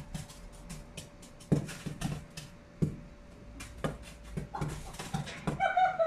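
Fireworks going off: a run of sharp pops and crackles, with two louder bangs about a second and a half and about three seconds in. A short pitched sound comes near the end.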